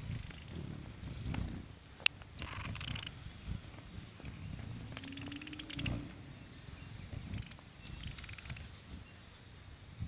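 Hummingbird wings humming in uneven fluttering passes, with one steady hum gliding slightly down in pitch about five seconds in. A sharp click about two seconds in.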